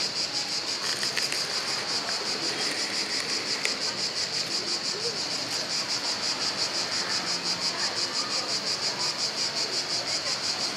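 Cicadas singing: a steady, high, rapidly pulsing buzz at about five or six pulses a second.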